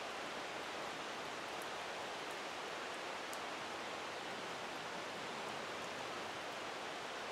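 Steady rushing of a rain-swollen creek flowing hard, with a few faint ticks between about one and a half and three and a half seconds in.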